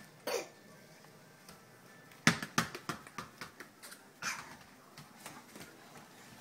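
A small ball bouncing on a hard vinyl floor: a loud first bounce about two seconds in, then quicker and quicker, fading bounces as it settles, and another shorter run of bounces later on. A toddler gives a short vocal sound at the start.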